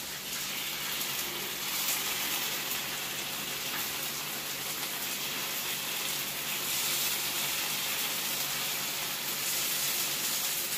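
Paniyaram batter sizzling in oil in the hollows of a paniyaram pan on a gas stove: a steady, even hiss while the balls are turned with a thin stick.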